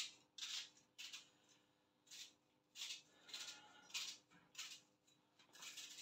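Small kitchen knife cutting an onion held in the hand: a series of short, quiet crisp cuts at an uneven pace.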